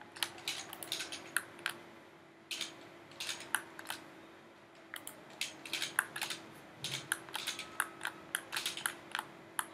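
Computer keyboard keys and mouse buttons clicking in irregular runs with short pauses, over a faint steady hum.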